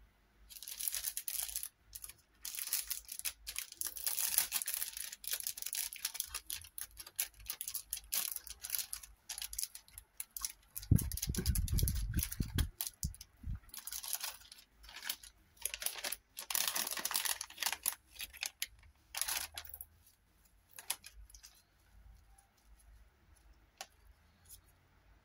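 Clear plastic packet being handled, crinkling and rustling in irregular bursts with short pauses, with a few dull bumps about eleven to thirteen seconds in.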